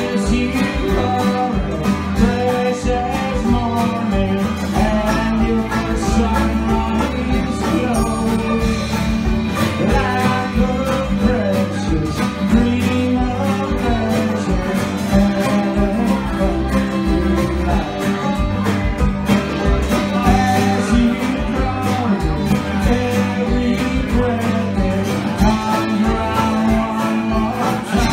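Live bluegrass-country band playing a song: banjo picking, strummed acoustic guitar and bowed fiddle over a hand drum keeping a steady beat.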